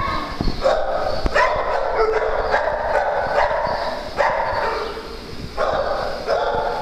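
Dogs barking and yapping over and over in a pack at play.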